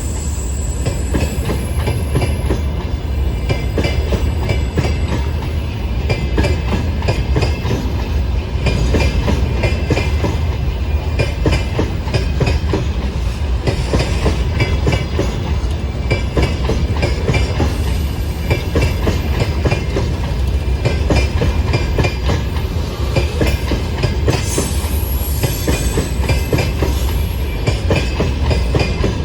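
Freight train wagons rolling past at close range, steel wheels clattering in a continuous rapid clickety-clack over the rail joints. Faint high-pitched wheel squeal comes in briefly near the start and again near the end.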